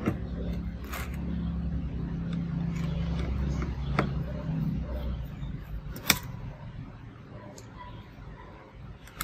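A few sharp clicks of a small screwdriver working metal screws in a laptop chassis, over a low steady engine-like hum that fades out about five seconds in.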